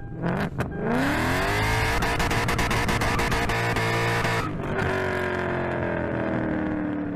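A car engine revving up, held at high revs with a rapid rattle, then winding down slowly after a brief dip, used as an intro sound effect.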